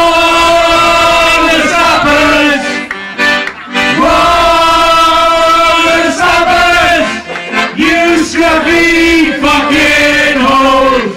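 Instrumental break between verses of a bawdy folk-style song: a reedy melody of held notes, some bending in pitch.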